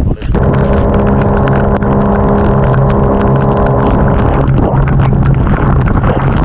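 A motor running steadily at an even pitch over heavy wind noise on the microphone. Its higher tones drop away about four and a half seconds in while the low hum keeps going.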